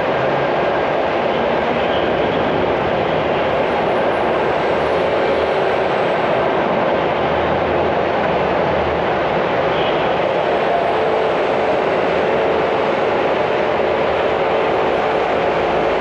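Steady traffic noise of cars and shuttle buses idling and creeping along an airport terminal's curbside pick-up and drop-off lanes, a continuous even rumble with no single vehicle standing out.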